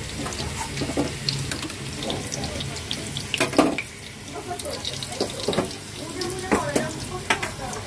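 Paneer and vegetable kebab skewers shallow-frying gently in oil in a non-stick pan on low heat, a steady crackling sizzle. A few knocks and clinks as skewers are lifted out onto a steel plate and others laid in the pan, the loudest about three and a half seconds in.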